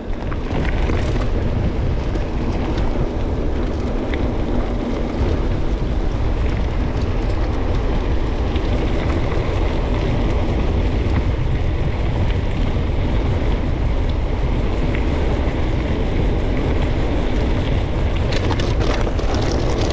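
Wind buffeting the action camera's microphone on a fast mountain bike descent, a loud steady rush heaviest in the low end, over the rumble of knobbly tyres on the track and occasional light rattles from the bike.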